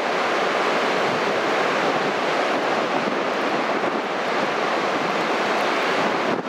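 Heavy nor'easter storm surf breaking and washing up the beach, with wind: a loud, steady rush of noise that drops off briefly near the end.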